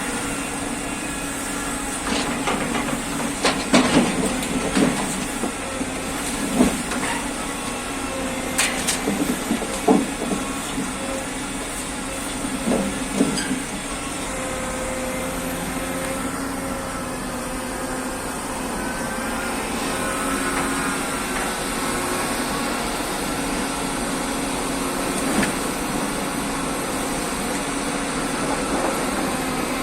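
Forestry crane machine's engine running steadily, with a whine that rises and falls, and several knocks and clanks in the first half.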